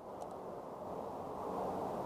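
Faint, steady low background noise outdoors, with a faint low hum joining about one and a half seconds in.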